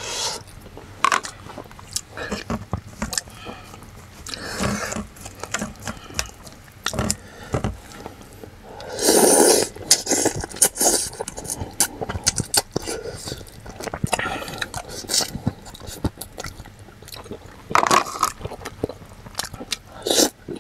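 Someone eating soup: chopsticks and a spoon scraping and clicking against a stainless steel bowl, one long loud slurp about nine seconds in, then chewing and more short slurps.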